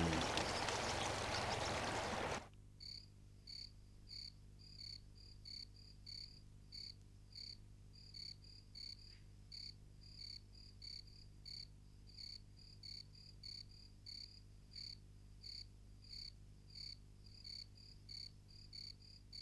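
A steady hiss cuts off suddenly about two and a half seconds in. After it comes a faint night ambience of short, high chirps from a small calling animal, repeating irregularly about twice a second.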